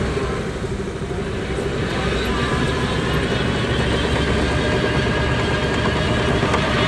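Bulldozer's diesel engine running steadily: a dense low rumble with a steady drone. The sound dips slightly about a second in, then builds a little.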